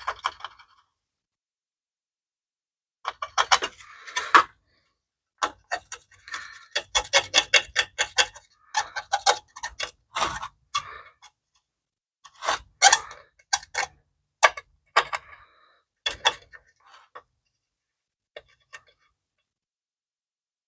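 Small hand tool scraping and picking caked grime off a metal exhaust heat shield: quick runs of sharp scratchy clicks, several a second, coming in bursts of a second or two with short pauses between.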